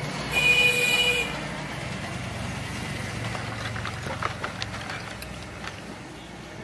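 Street traffic noise, with a vehicle horn sounding once for about a second near the start, followed by a few light clicks and taps.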